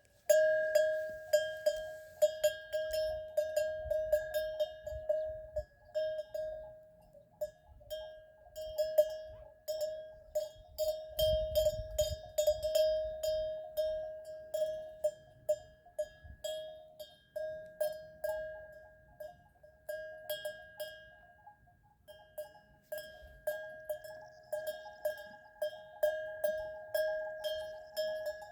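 A goat's bell clanking irregularly, struck several times a second as the animal moves, so that each strike rings on into a near-continuous tone; it falls silent briefly about three-quarters of the way through.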